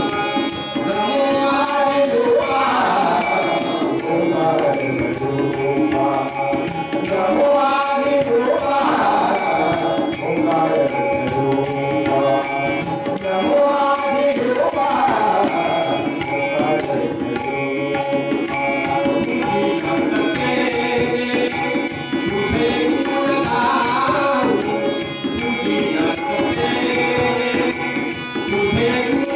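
Bhajan: a man singing a devotional melody with harmonium accompaniment, while small hand cymbals (taal) strike a steady beat.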